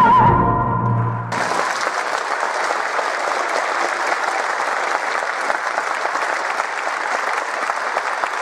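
The last held note of a soprano and tenor over a wind band's final chord ends about a second in, followed by steady audience applause.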